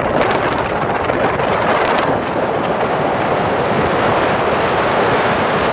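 Loud, steady wind rushing onto the microphone through the open window of a moving car, over the car's road noise.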